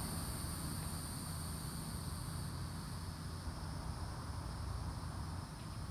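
Insects, such as crickets or cicadas, giving a steady high-pitched drone; the highest part drops away about two and a half seconds in, over a low steady background rumble.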